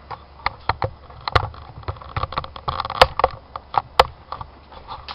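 Handling noise from a camera on a cheap tripod being adjusted: an irregular string of clicks and knocks, the loudest about one and a half, three and four seconds in.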